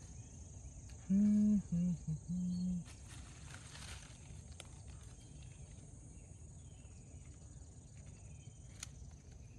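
Digging into dry leaf litter and soil with a small hand tool: faint rustling and scraping, and a few light clicks from the tool. A steady high insect drone runs under it. About a second in come three short, steady humming tones, the loudest sound here.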